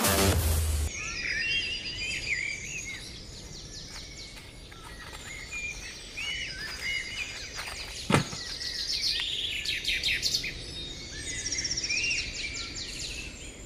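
Electronic music cuts off within the first second, leaving many forest birds chirping, warbling and trilling. One sharp knock comes about eight seconds in.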